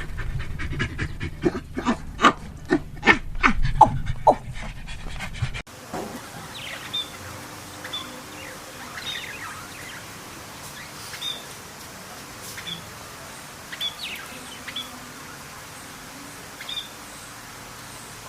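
A dog barking in quick, repeated yaps for the first six seconds. It then cuts abruptly to a quieter steady hiss with short, high chirps about once a second, like small birds calling.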